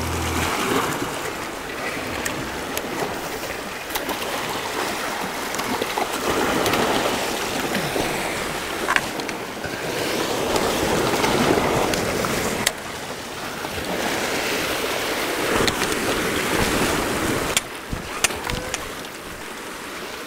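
Sea swells washing and breaking over a rocky shoreline in surges that rise and fall every few seconds, with a few sharp clicks now and then.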